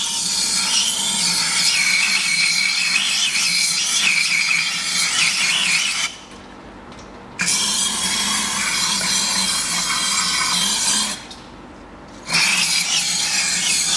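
Aerosol can of carburettor cleaner spraying through its thin straw in three long hissing bursts with short pauses between, flushing out the plastic power-steering reservoir.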